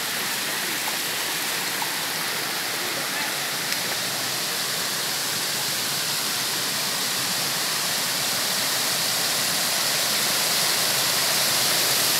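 Small waterfall cascading over stepped rock ledges into a shallow stream: a steady rush of water that grows gradually louder toward the end.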